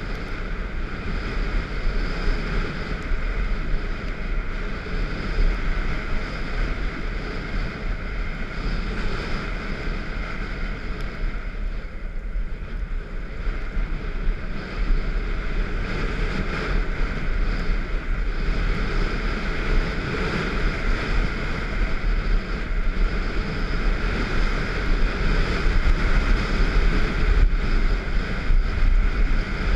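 Wind buffeting an action camera's microphone during a fast run down a groomed ski slope, a steady low rumbling rush, with the hiss of sliding over packed snow.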